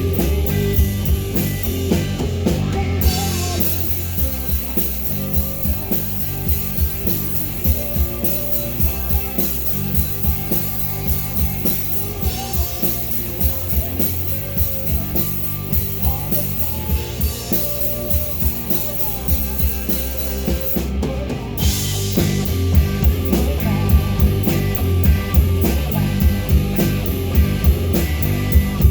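Live rock band playing: drum kit, distorted electric guitars and bass, with some sung vocals.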